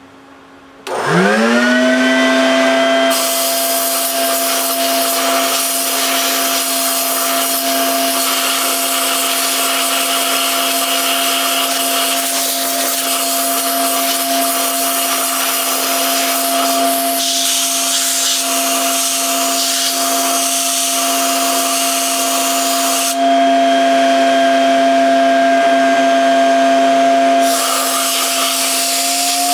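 Vacuum cleaner motor spinning up with a rising whine about a second in, then running steadily, with a compressed-air blow gun hissing over it as air is blown through the cylinder block's water jacket to clear out slag and debris. The air hiss stops for a few seconds near the end, then starts again.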